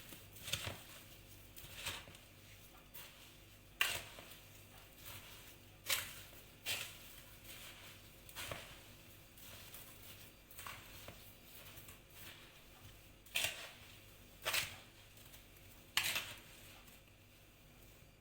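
A utensil scraping and knocking against a bowl while cut strawberries are tossed in sugar: irregular sharp clicks, about one every second or two.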